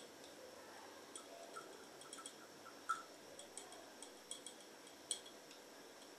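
About a dozen faint, sharp ticks and clicks at irregular intervals from a glass test-tube apparatus: a test tube joined by a glass delivery tube to a second test tube.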